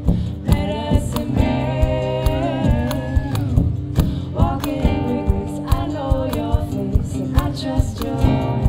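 Live band music: a woman singing over acoustic guitar and drums, with a steady beat of about two strikes a second.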